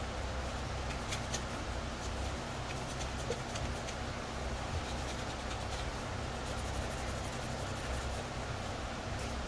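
Fine abrasive rubbed by hand over a plastic helmet shell: a continuous scratchy rubbing as the surface is scuffed for primer.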